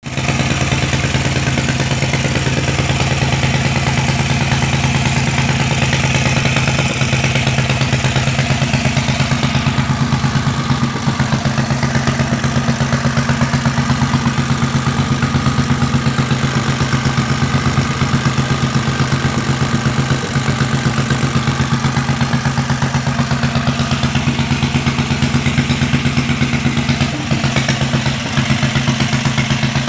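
Modified Yamada 18 hp single-cylinder four-stroke engine, fitted with an open-bellmouth racing carburettor, running steadily at one speed with an even, rapid pulse.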